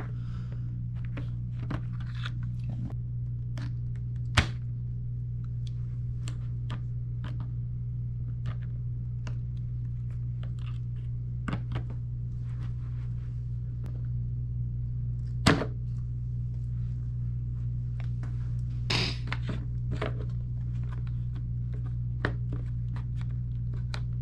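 Hand tin snips clipping small bites out of a plastic rear fender, heard as scattered sharp snaps and clicks. Two louder cracks come about four seconds in and about fifteen seconds in. A steady low hum runs underneath.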